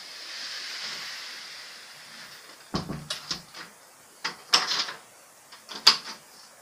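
Apartment plumbing noise: a hiss that swells and fades over the first two seconds, then three groups of sharp clicks and knocks.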